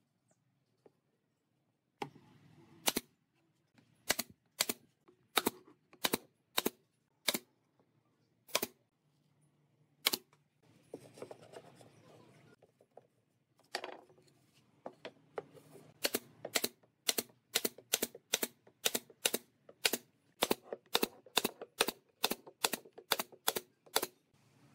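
Pneumatic nail gun firing nails into pine boards, each shot a sharp crack. The shots come singly, about a second apart, then in a quicker run of about two a second through the second half.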